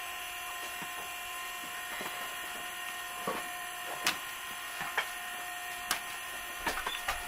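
A small electric motor whining steadily on several fixed pitches, with about seven short, sharp clicks and knocks scattered through it.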